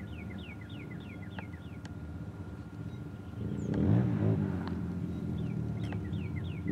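Quad (ATV) and dirt bike engines running, revving up and down and growing louder about halfway through as they come close. Short, high, falling chirps repeat in the background.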